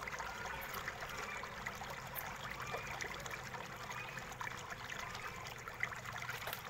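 Faint steady hiss with light scrapes and small taps of hands handling a plastic laptop base, and one sharper tap about six seconds in.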